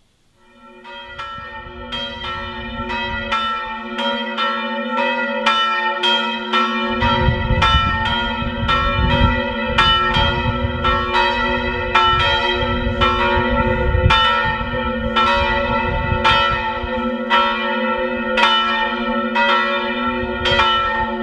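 Church bells ringing in the service, struck about twice a second with long ringing tones. They start about half a second in and grow louder over the first few seconds.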